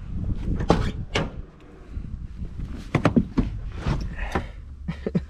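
Mazda Miata's door being opened, then a series of clicks, knocks and clunks as someone climbs into the driver's seat.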